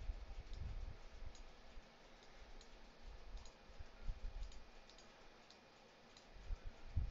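Quiet computer mouse clicks, scattered every half second to a second, with soft low thumps now and then.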